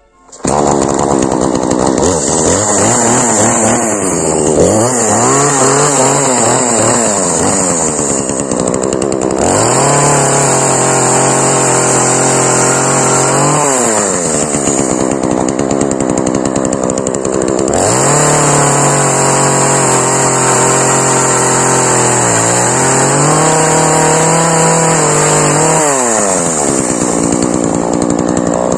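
Petrol chainsaw running and cutting wood, starting abruptly. It revs up and drops back again and again as the engine speed changes through the cuts.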